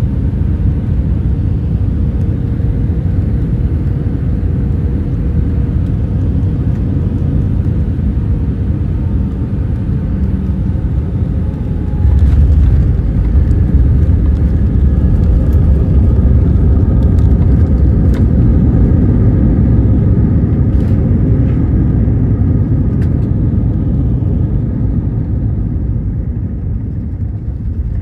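Airliner cabin noise on final approach: a steady rumble of engines and airflow. About twelve seconds in the wheels touch down and a louder, heavier rumble of the landing rollout follows, with a few knocks and rattles, easing off near the end as the plane slows.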